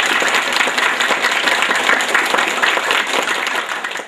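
Audience applauding: many hands clapping together at a steady strength.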